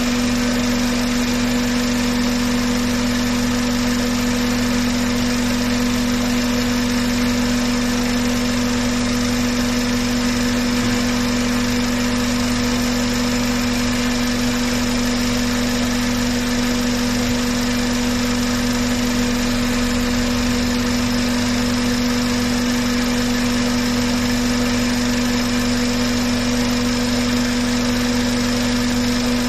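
Honda Civic four-cylinder engine idling steadily at about 800 rpm, warmed up close to normal operating temperature, with a constant even hum.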